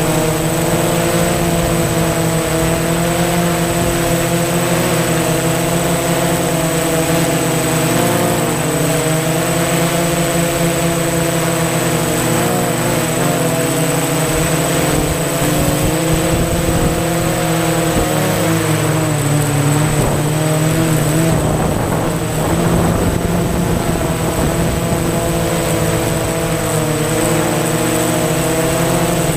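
DJI Phantom FC40 quadcopter's four electric motors and propellers buzzing, heard from the drone itself. Several pitches drift up and down together as it manoeuvres, unsettled for a few seconds past the middle, with a steady high-pitched tone above.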